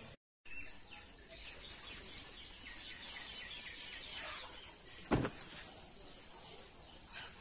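Birds chirping, with a run of quick falling calls in the first half, over a steady high-pitched hiss. One sharp knock comes about five seconds in and is the loudest sound.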